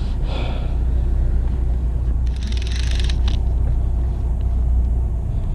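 Fishing boat's engine idling with a steady low rumble. A brief rattly hiss lasts about a second, starting about two seconds in.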